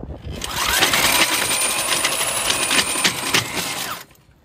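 Electric core drill with a toothed core bit grinding into a stone wall: the motor winds up to speed, runs with a harsh rattling grind, and cuts off suddenly about four seconds in.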